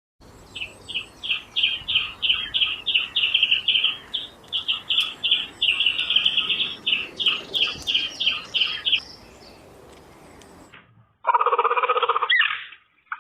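A bird chirping, a quick series of short high chirps at about three a second that stops about nine seconds in. A loud call of a different kind starts about two seconds later.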